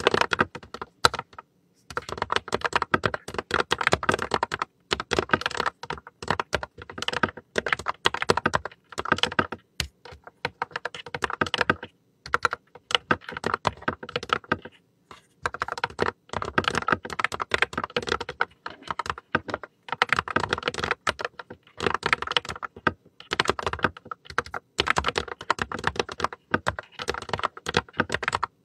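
Fast typing on a Colorreco mechanical keyboard: quick, dense keystroke clacks in runs of several seconds, broken by a few short pauses.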